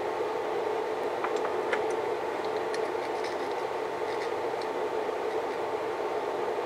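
Steady background noise with a faint low hum, and a few faint light clicks as a bike headlight's circuit board and plastic housing are handled in the fingers.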